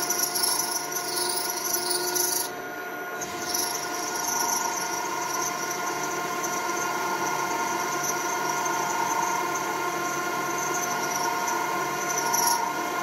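Vertical milling machine running, its end mill cutting a slot in a metal plate: a steady machine whine over cutting noise, which dips briefly about two and a half seconds in.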